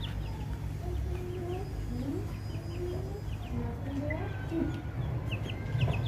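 Hens clucking: a run of short, low calls that starts about a second in and dies away near the end, over a steady low rumble.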